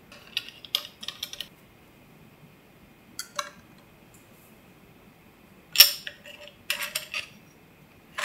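Hard plastic clicks and taps as a 3D-printed hood is pushed onto a LiDAR scanner's screen and pressed into place: a scatter of light clicks in the first second and a half, a few more around three seconds in, a sharp click a little before six seconds, then another quick run of clicks.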